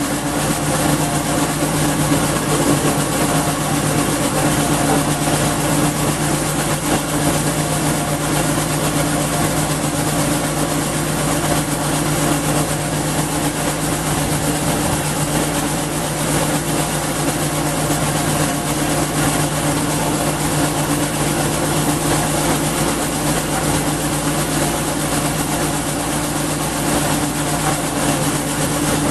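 Garden wood chipper with a 5.5 HP Briggs & Stratton single-cylinder engine running at a steady speed, loud and unchanging, with no chipping load.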